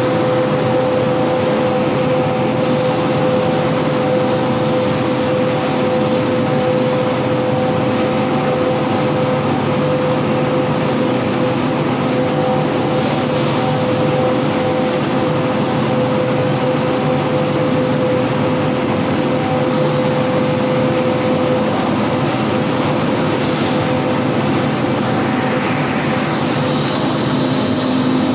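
Dream air compressor running steadily: an even, loud machine drone with a steady whine that fades out about three-quarters of the way through.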